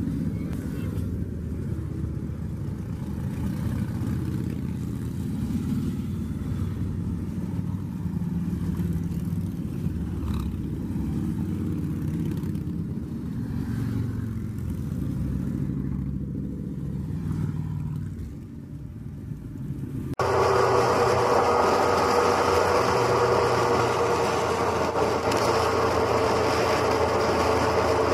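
A line of touring motorcycles, Harley-Davidson V-twins among them, rumbling past at low speed one after another. About twenty seconds in, it cuts suddenly to louder, steady wind and engine noise from riding a motorcycle at highway speed.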